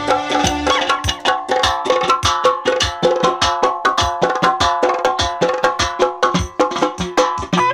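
Fast percussion passage on Azerbaijani drums: the nagara, a large double-headed drum beaten with the hands, and the qosha nagara, a pair of small kettle drums played with thin sticks, both striking in a dense, driving rhythm over steady held synthesizer notes.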